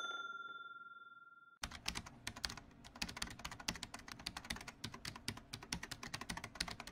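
A bell-like ding fades out over the first second and a half. Then comes a long run of rapid keyboard-typing clicks, a sound effect for text being typed onto the screen.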